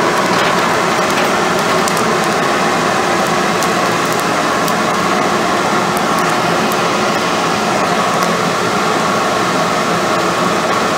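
Blacksmith's coal forge fire burning dry whole feed corn: a loud, steady rushing of air and flame, with scattered small crackles and pops as the charcoal burns off in sparks while the fire gets established.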